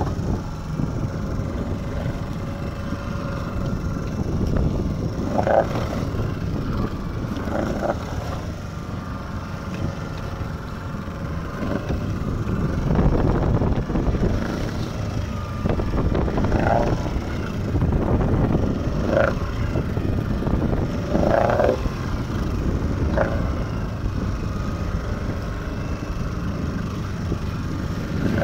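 Fishing boat's engine running steadily under way, with water rushing along the hull as the gill net is paid out over the side. Several short high-pitched sounds cut through.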